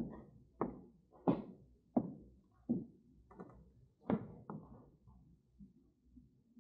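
Footsteps on a hard floor, a steady walking pace of about one step every 0.7 seconds, that stop about four and a half seconds in.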